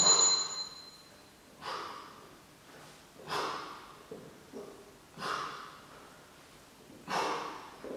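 A man breathing out hard with the effort of sit-ups: four strong, noisy breaths about every two seconds, with fainter ones between.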